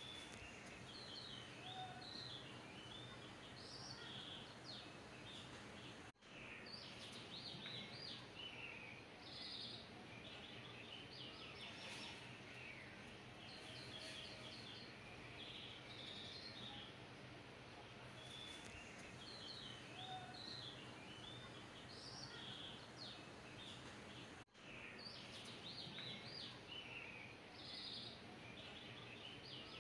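Faint birdsong track: many short bird chirps and tweets over a steady hiss. The sound drops out for an instant twice, about eighteen seconds apart, as the track starts over.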